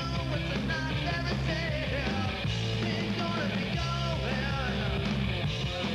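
Rock music with a singing voice over a steady bass line.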